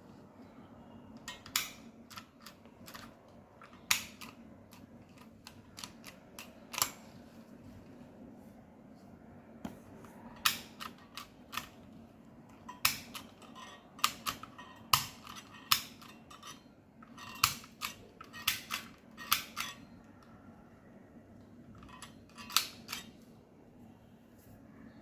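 Irregular sharp clicks and snips from sewing work, single and in quick clusters, over a faint steady hum.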